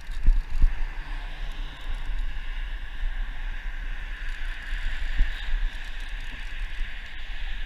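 Wind rumbling on the microphone over the steady hiss of road traffic, with a few brief low knocks.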